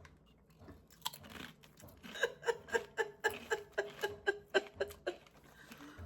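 A person chewing Doritos tortilla chips with crisp, rhythmic crunches about four times a second. The crunching starts faintly about a second in, gets louder from about two seconds in, and fades near the end.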